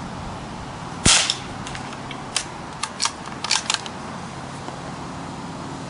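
One shot from a Marlin XT-22 bolt-action .22 LR rifle firing CCI Quiet subsonic ammunition, a short sharp crack about a second in, followed by a run of metallic clicks as the bolt is worked to chamber the next round.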